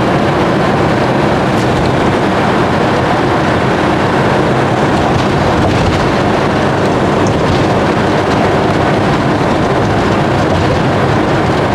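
Vehicle engine and road noise heard while driving, a steady rushing noise with a low, even engine hum.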